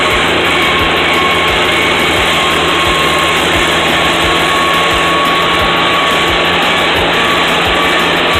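Tractor engine running steadily under load while pulling a disc harrow, heard from inside the cab as a loud, even drone with a steady whine over it.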